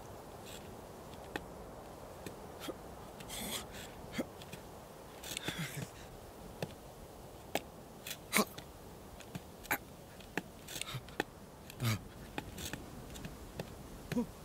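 Quiet film soundtrack ambience of the animated sheep on a rock: scattered small clicks and taps, a couple of short breathy hisses, and a few brief low vocal sounds from the sheep.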